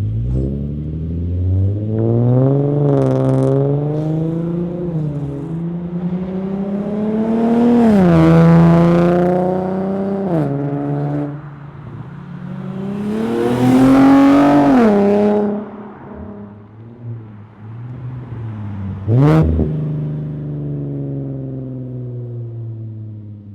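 Infiniti G37 sedan's VQ37VHR V6 through an ISR single-exit exhaust and Y-pipe, accelerating in drive-bys: the exhaust note climbs in pitch and drops at each gear change, loudest twice as the car goes past. A short sharp burst of exhaust noise comes late on.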